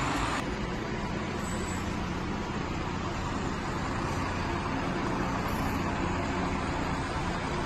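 Convoy of army trucks driving past on a street, engines running with a steady low hum under road noise.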